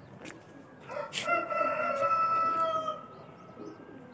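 A rooster crowing once: one long held call of about two seconds, starting about a second in.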